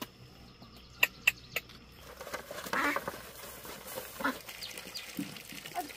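A flock of white domestic ducks quacking in many short calls from about two seconds in, as grain is poured for them. A little earlier, about a second in, three sharp clicks, the loudest sounds.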